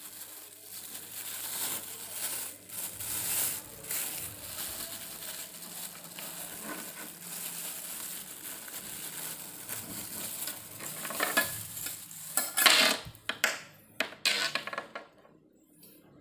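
Plastic bag crinkling and rustling as it is worked open. About eleven seconds in comes a run of sharp metallic clinks and rattles as a KMC X12 12-speed bicycle chain is pulled out and handled.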